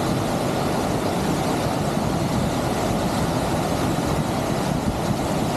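Lower Tahquamenon Falls rushing steadily close by: an even, continuous wash of falling water, heaviest in the low and middle range.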